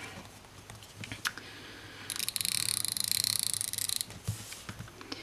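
A rapid, dry crackling of fine clicks lasting about two seconds in the middle, from something small being handled at the desk, with a few faint knocks around it.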